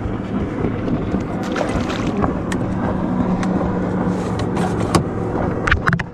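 Bass boat running on the water, its outboard motor's steady drone under wind and water noise, with sharp knocks now and then.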